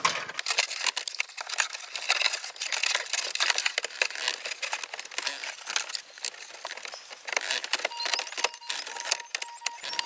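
Wiring harnesses rustling and a plastic car head unit clicking and scraping as it is pushed into the dashboard opening, a busy run of small clicks and rubs.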